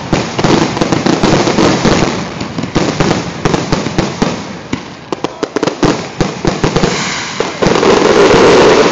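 Fireworks exploding in rapid, overlapping bangs and pops, which merge into a dense, louder continuous wash of bursts near the end.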